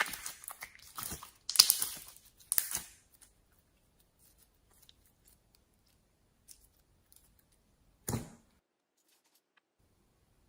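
Slime being handled, giving several crackling, tearing squishes in the first three seconds, then faint small pops and one more squish about eight seconds in.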